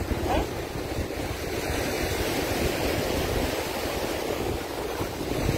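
Small sea waves breaking and washing up the sandy shore in a steady rush of surf, with wind rumbling on the microphone.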